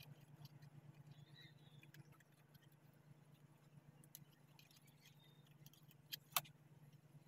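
Near silence with a faint steady low hum, broken about six seconds in by two small clicks as a plastic wire connector is pushed onto the speaker's circuit board.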